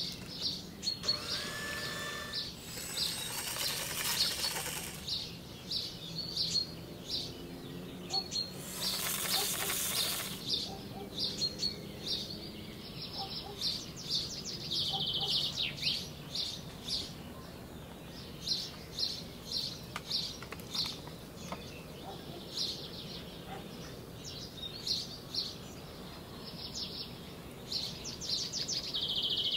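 Small birds chirping over and over. Two longer hissing noises of about two seconds each come a few seconds in and again around nine seconds in.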